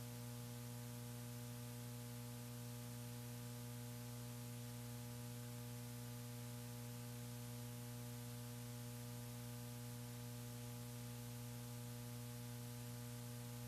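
Steady electrical hum with hiss on an open commentary audio line, unchanging throughout with no other sound.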